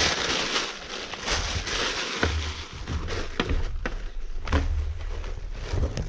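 A large clear plastic garbage bag rustling and crinkling as it is handled, with a few sharper snaps.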